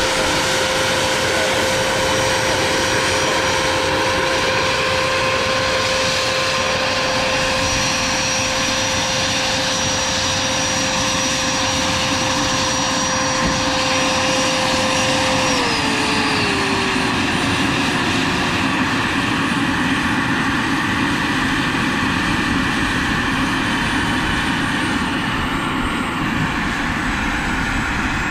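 Turbine-powered Vario MD600N model helicopter running: a steady turbine whine over rotor noise. A little past halfway the whine steps down in pitch in a couple of small steps.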